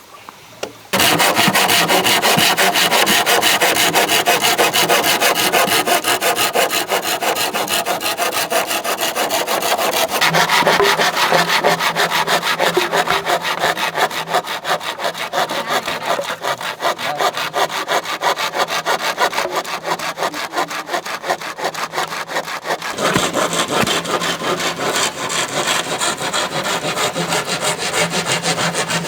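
A saw cutting through bamboo in steady rasping strokes, starting about a second in, with a brief pause about three quarters of the way through before the cutting goes on.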